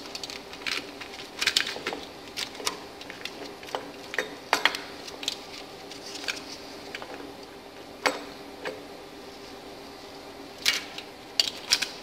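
Duplex timing chain clinking and rattling against its sprockets and the engine's metal casing as it is worked into place by hand: irregular sharp metallic clicks, with a quick cluster of them near the end.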